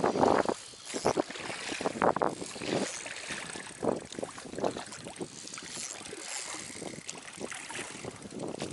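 Oars rowing an inflatable boat: a string of uneven splashes and knocks from the strokes, about one a second, over a steady hiss.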